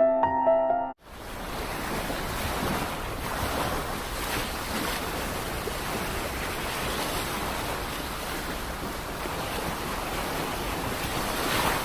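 Piano music cuts off about a second in. It gives way to a steady rush of surf and wind.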